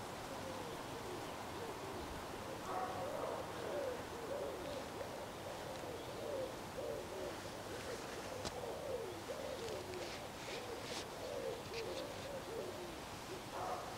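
A bird calling: a long run of low, wavering notes, joined near the end by a few short high chirps.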